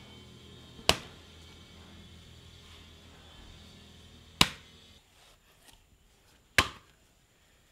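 A hand tool striking into a heap of wet potter's clay being worked up for a large pot: three sharp whacks, the first about a second in and the others a few seconds apart.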